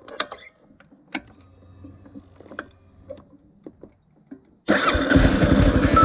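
A few faint clicks and knocks, then, near the end, a Honda CRF250L's single-cylinder engine cuts in abruptly and runs with a fast, even pulse.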